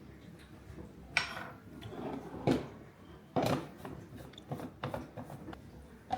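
Kitchen handling sounds: a few knocks and clatters of dishes and utensils, the loudest about a second in, two and a half seconds in and three and a half seconds in, with lighter clicks between.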